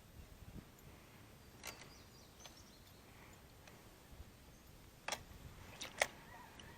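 A few faint, sharp clicks or taps against a quiet outdoor background: one about two seconds in, then three close together near the end.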